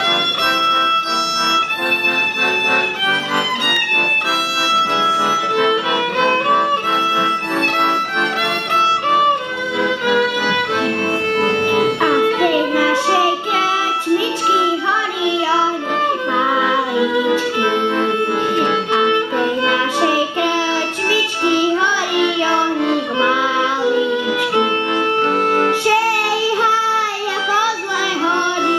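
Violin and accordion playing a lively Slovak folk tune together. About twelve seconds in, a young child's voice starts singing along with them.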